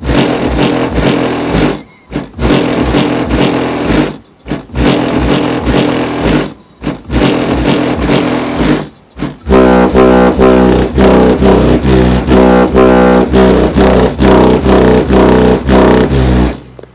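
Loud music with heavy bass played through a car's aftermarket stereo with dual 12-inch Rockford Fosgate subwoofers, heard outside beside the rear fender; the bass is strong enough to flex the body panel. The music drops out briefly several times, turns to a heavier, sustained bass section about halfway through, and cuts off suddenly near the end.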